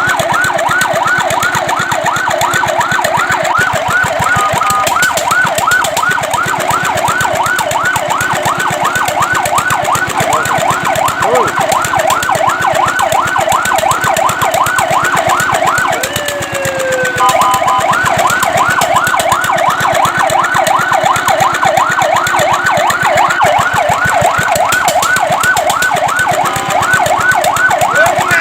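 Fire truck siren in a fast yelp, its pitch sweeping up and down about four times a second. About sixteen seconds in it breaks off with a falling tone and a few steady tones, then the yelp resumes.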